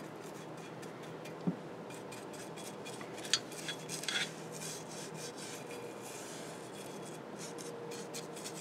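An acid brush stroking japanning onto a cast-iron Stanley plane body, heard as faint, scratchy brushing with a few light clicks as the brush knocks against the metal.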